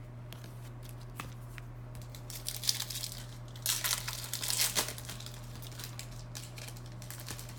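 A foil trading-card pack being torn open and its wrapper crinkled: irregular crackling bursts from about two and a half seconds in, loudest around four seconds, dying away about five seconds in.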